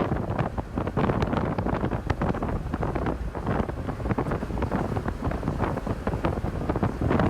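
Wind buffeting the microphone: a constant low rumble broken by many short crackles.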